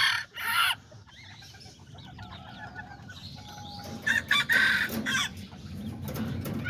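Bantam chickens and roosters clucking and calling, with a short loud call just after the start and a louder cluster of calls about four to five seconds in.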